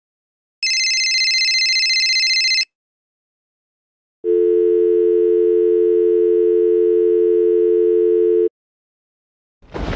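A telephone rings with a high, warbling electronic trill for about two seconds. After a pause, a steady dial tone sounds for about four seconds. A loud crash begins right at the end.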